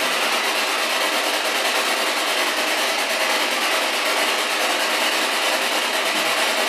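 Spirit box sweeping through radio frequencies, putting out a steady rush of radio static.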